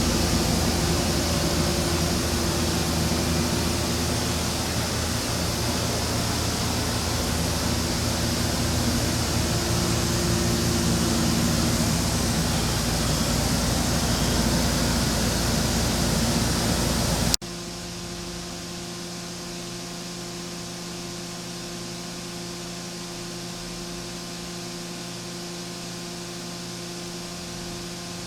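Mazak Nexus 510C CNC vertical machining center running with a steady hiss and hum. About seventeen seconds in, the sound drops abruptly to a quieter steady hum.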